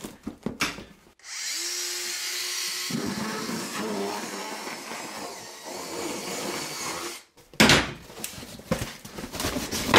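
A small handheld power tool runs for about six seconds, spinning up as it starts, while it cuts through a taped cardboard box. Near the end come crackling and tearing sounds as the cardboard flaps are pulled open.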